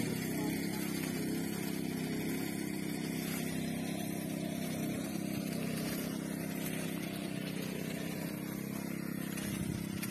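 A small engine running steadily at a constant speed, a low, even hum with no change in pitch.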